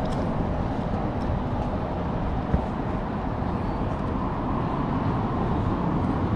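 Steady city street traffic noise: cars passing on the road, with a single short tick about two and a half seconds in.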